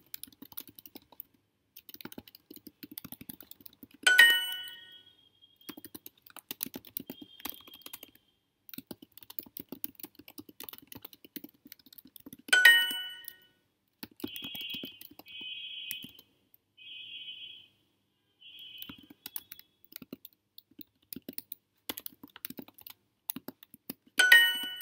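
Computer keyboard typing in quick runs of clicks. Duolingo's bright answer-check chime rings three times, the loudest sounds, each marking a correct answer. Midway comes a short run of four brief tones.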